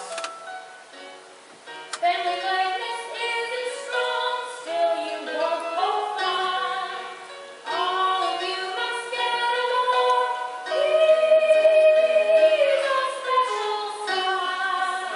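A woman's voice singing a stage-musical number, with a long held note about two-thirds of the way through.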